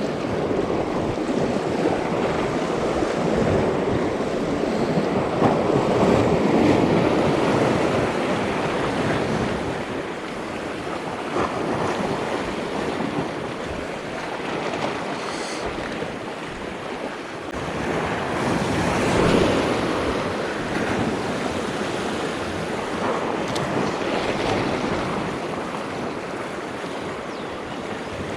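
Sea waves washing on a rocky shore, swelling louder twice, with wind buffeting the microphone.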